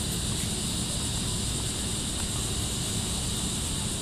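Steady outdoor background noise: a low rumble with a constant high hiss, and no distinct events.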